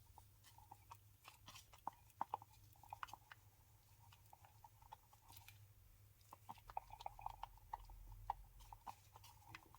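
Near silence, with faint, scattered small clicks and taps.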